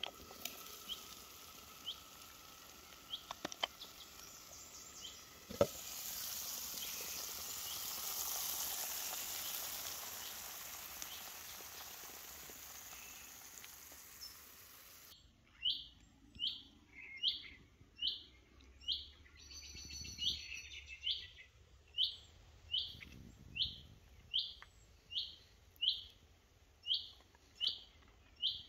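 Food sizzling in a lidded frying pan: a sharp click about five seconds in, then a loud, even sizzle that slowly fades, with small birds chirping faintly. About halfway through the sizzle stops abruptly and a bird repeats one sharp call roughly every 0.8 seconds.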